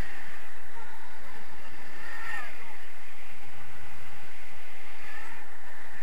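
Steady wind rushing over the camera's microphone in flight under a tandem paraglider, a continuous buffeting rumble and hiss.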